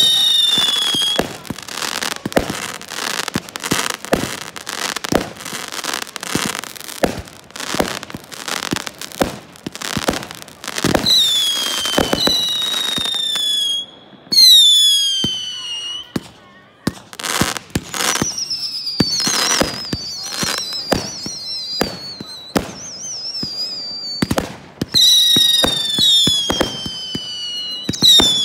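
Fireworks display: a dense run of sharp bangs and crackles mixed with repeated whistling shells. Each whistle falls in pitch, and a few near the middle waver up and down.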